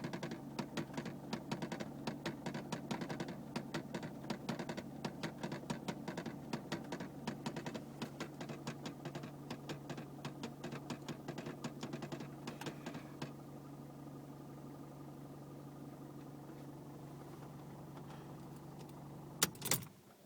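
Rapid, regular ticking from behind the dashboard of a 2001 Mercedes C220 CDI, several ticks a second over its four-cylinder diesel idling, which the owner hears for about a minute after every start and cannot explain. The ticking stops about 13 seconds in while the engine keeps idling; two sharp clicks come near the end, and then the engine sound cuts off.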